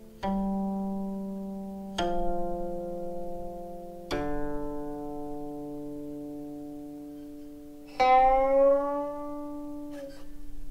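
Guqin (seven-string Chinese zither) played slowly: single plucked notes about two seconds apart, each left to ring and fade. About eight seconds in comes a louder note whose pitch slides upward as it rings.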